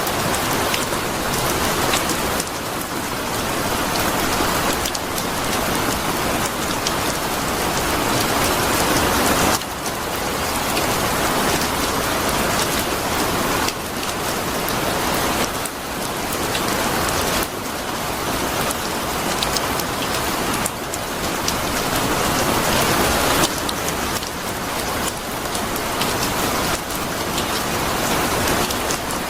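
Heavy rain falling in a dense, even hiss. The level swells slowly and drops back abruptly every few seconds.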